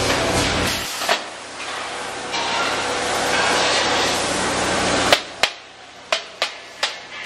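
A steady rushing noise that cuts off about five seconds in, followed by sharp hammer knocks, about two a second.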